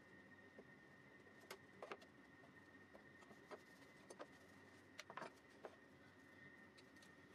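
Near silence with a faint steady high whine, broken by a scattering of light clicks and taps as a plastic routing template and a bar clamp are handled against a plywood box.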